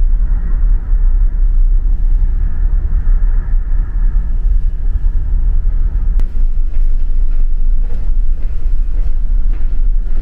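Steady, loud low rumble of a large car ferry under way at sea, with a hiss in the first half and a few faint clicks later on.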